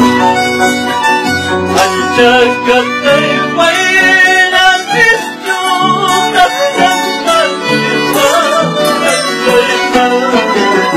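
Ayacucho-style Andean song: a man singing, accompanied by violin, guitar and harp.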